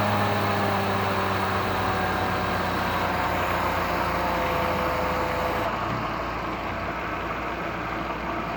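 Supercharged 2.0-litre M111 four-cylinder engine of a Mercedes W210 settling back from a rev. A whine falls steadily in pitch and fades out about five and a half seconds in, leaving the engine idling steadily.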